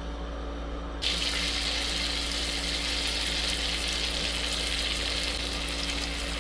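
Butter frying with grated ginger and sliced green chillies in a small pan, a steady sizzling hiss that starts abruptly about a second in, over a low steady hum.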